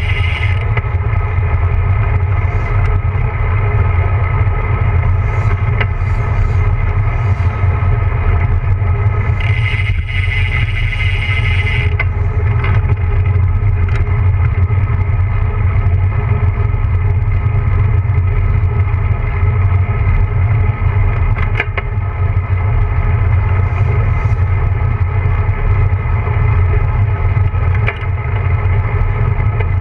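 Wind rushing over a camera mounted on a bicycle trailer during a downhill road descent, with a deep rumble from the road and tyres. A few light rattles come through, and a brighter hiss rises for a couple of seconds about ten seconds in.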